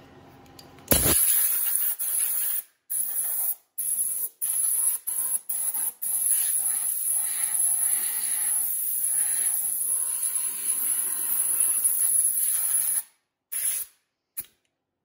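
Compressed-air blow gun blowing grinding dust off a surface grinder's magnetic chuck: a high-pitched hiss that starts about a second in, comes in several short blasts, then runs as one long steady blast, with a last short blast near the end.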